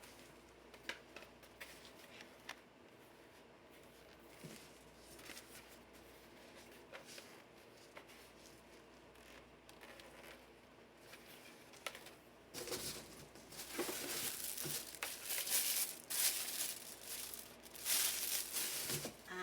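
Packaging being handled, crinkled and torn open: faint scattered handling clicks at first, then louder continuous crinkling and tearing from about two-thirds of the way through.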